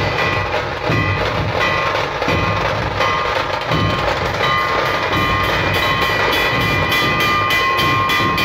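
A dhol-tasha troupe drumming: large barrel dhols and smaller slung drums beaten together in a loud, dense, continuous rhythm. A steady high tone runs over the drumming and grows stronger about halfway through.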